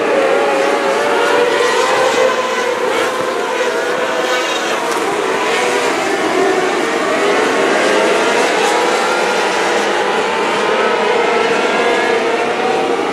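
A field of non-wing sprint cars racing on a dirt oval, many engines running at once, their pitches rising and falling as the cars come around and pass.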